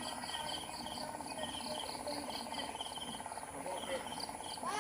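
Crickets chirping in a steady rhythm, about five high chirps a second over a fast, continuous trill.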